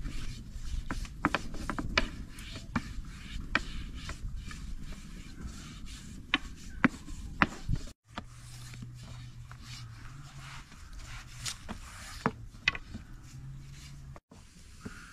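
Long thin wooden rolling pin knocking and rubbing on a wooden board as thin flatbread dough is rolled out and wrapped around the pin: a string of sharp irregular taps and clicks. A low steady hum runs in the background through the second half.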